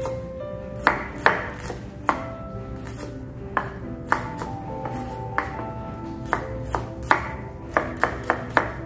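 Kitchen knife chopping shallots on a wooden cutting board: irregular sharp strikes, a dozen or so, coming quicker near the end, over background music.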